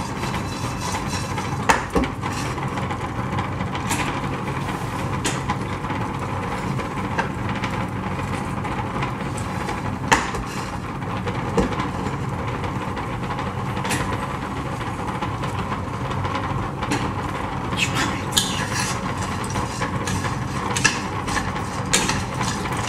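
Cashew nuts being dry-roasted in a frying pan and stirred now and then: scattered clicks and scrapes of the utensil and nuts against the pan, over a steady hiss.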